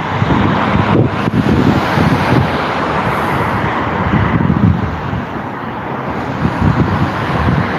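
Steady road traffic noise with wind buffeting the phone's microphone.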